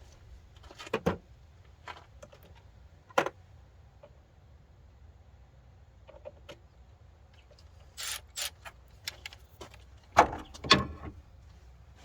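Metal hand tools clinking and knocking: a socket being picked up and fitted to a ratchet, a few separate clanks with the loudest pair near the end.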